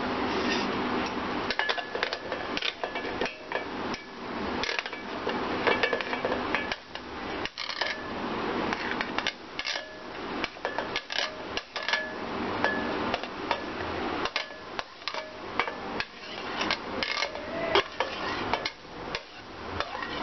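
A metal spoon clinking and scraping against a serving plate and a stainless steel mixer-grinder jar as banana pieces are pushed off the plate into the jar: many irregular clinks and knocks.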